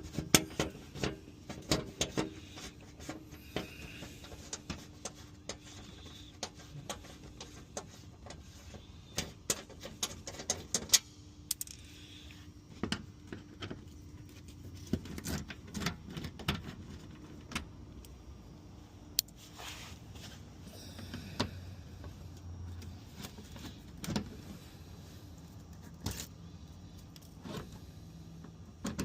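Scattered metallic clicks and clinks of hand tools and parts being handled while working on the car, over a faint steady hum.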